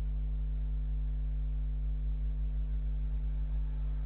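Steady electrical hum with several constant tones over faint hiss, from a security camera's own audio; no distinct sound from the animal stands out.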